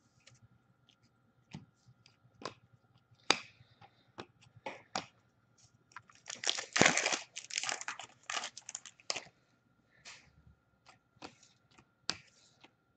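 A hockey card pack's wrapper being torn open and crinkled, with scattered light clicks and taps of the cards being handled. The crinkling is thickest from about six to nine seconds in.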